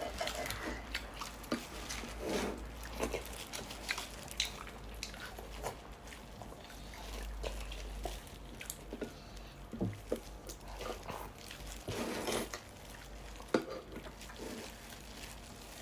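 Eating sounds from a bowl of sinigang soup: a spoon clicking now and then against the bowl, with soft slurps and chewing.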